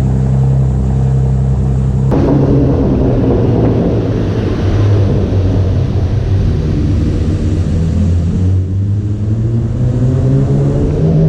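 Chevrolet Camaro V6 exhaust, deepened by a cold air intake, running with a steady drone. About two seconds in, the sound changes abruptly to a rougher, louder note with rushing noise. Near the end the engine note rises as it accelerates.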